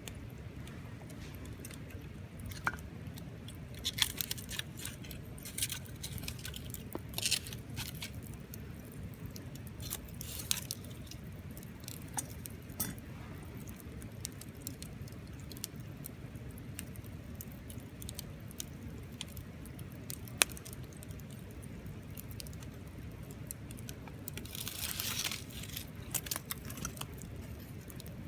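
Wood campfire crackling, with scattered sharp pops over a steady low rumble and a denser flurry of crackles near the end.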